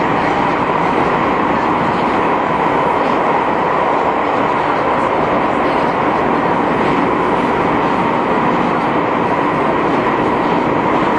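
Steady running noise heard inside the motor car of a JR 221 series electric multiple unit (KuMoHa 221-70) travelling at speed: an even rumble and hiss of wheels on rail with a constant hum running through it.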